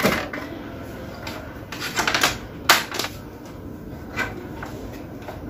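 A few sharp clicks and light knocks of hand tools working on a circuit board as its push-button switches are desoldered, the loudest click about two and a half seconds in.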